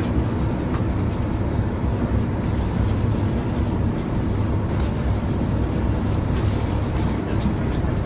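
Boat engine running steadily with a low, even sound.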